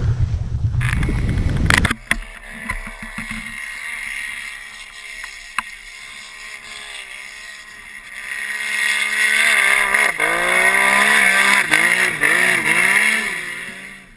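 A snowmobile engine running and revving, its pitch swinging up and down and louder from about eight seconds in. The first two seconds are a loud rushing noise on the microphone.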